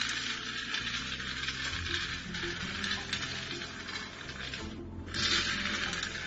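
Coffee beans tumbling and rustling as they are stirred in a small electric home roaster, a dense hiss that breaks off briefly about five seconds in and then resumes.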